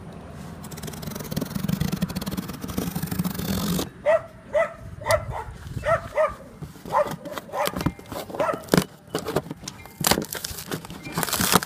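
A dog barking over and over, about two barks a second, starting about four seconds in. Before the barking there is a steady rushing noise, and near the end a brief ripping sound of packing tape being pulled apart on a cardboard box.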